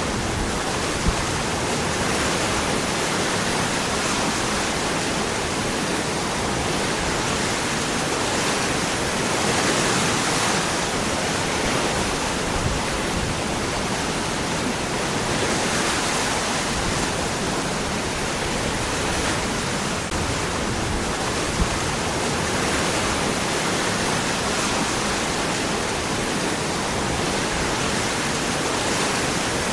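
Waterfall pouring over rocks: a steady, dense rush of falling water that swells a little now and then, with a couple of faint splashes or clicks.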